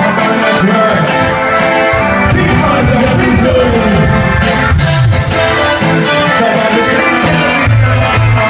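A live band playing loud music with a steady drum beat.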